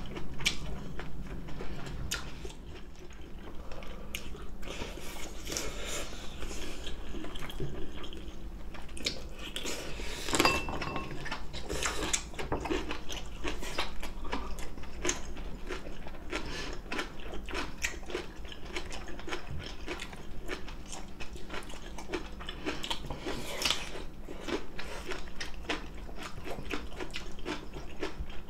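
Close-miked eating: crunchy bites into cucumber-pepper kimchi and chewing of braised beef, with a steady stream of small clicks and mouth smacks.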